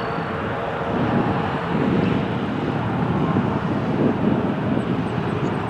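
Jet airliner's engines at takeoff power: a steady rushing roar with small swells, mixed with wind buffeting the microphone.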